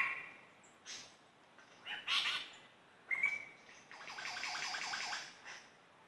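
Superb lyrebird singing a run of varied calls. A sharp whistle and short chips give way to a whistled note, then a fast trill of repeated notes lasting about a second near the end.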